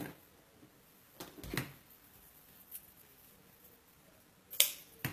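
Scissors snipping the end of a wired ribbon into a dovetail, with soft crinkles of the ribbon being handled. A couple of faint snips come a little over a second in, and a sharper, louder snip near the end.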